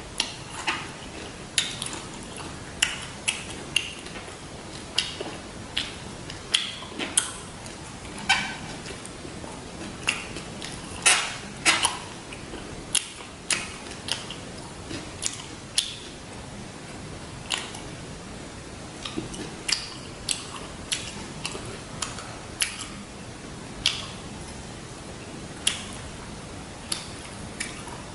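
Close-miked chewing of a fresh rice-paper spring roll with shrimp and pork: irregular wet mouth clicks and smacks, about one a second, sometimes in quick clusters, with a louder pair of crunches about halfway through.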